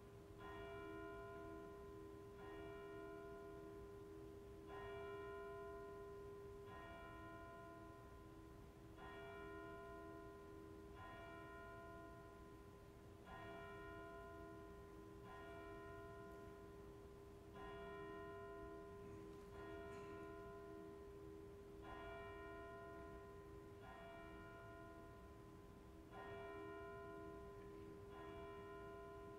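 A church bell tolling slowly and faintly, one stroke about every two seconds, each stroke ringing on into the next over a steady hum.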